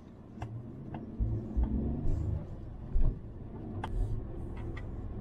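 Suzuki Jimny JB64 driving, heard from inside the cabin: a steady low engine and road rumble with irregular low thumps, the loudest about three seconds in, and a few light ticks and rattles.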